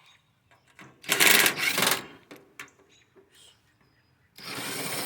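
Cordless drill-driver running in two short bursts of about a second each, backing out 5/16 screws from an air conditioner's sheet-metal housing; the first burst is the louder.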